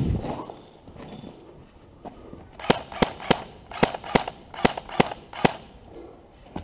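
MP5-style airsoft replica firing single shots: about eight sharp cracks a few tenths of a second apart, from about two and a half to five and a half seconds in. A low thump comes at the start.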